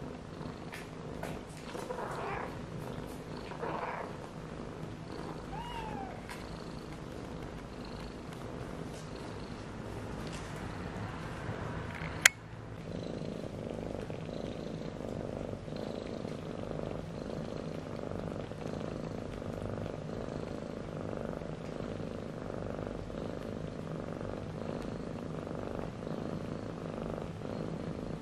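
Cat purring steadily while nursing kittens, a continuous low rumble. A few short, faint squeaks come near the start, and a single sharp click about twelve seconds in.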